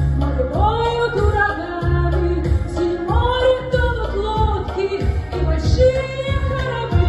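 A song: women singing over a backing track with a steady, pulsing bass line.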